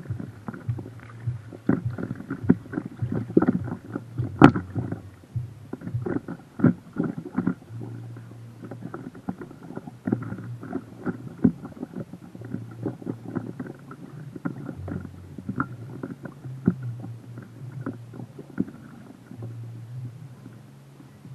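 River wavelets lapping and slapping against a small floating craft right at the waterline. The splashes are irregular over a low rumble, with one sharper slap about four and a half seconds in.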